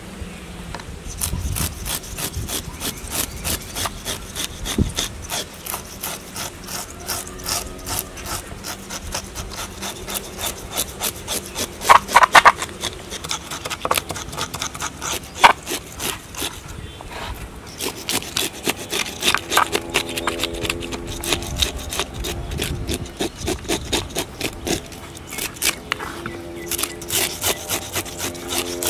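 Rapid, repeated rasping scrapes, several strokes a second with brief pauses, and a few sharper, louder clicks about halfway through.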